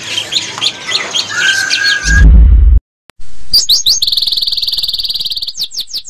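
Caged songbirds chirping, with a short held whistle, for about two seconds. Then a loud low boom, a brief dropout, and a very fast high-pitched bird trill with sweeping whistles that slowly fades.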